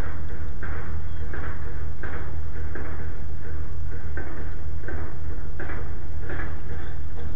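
Fishing reel being cranked, a gear whir repeating about every 0.7 seconds in a steady rhythm, over a steady low hum.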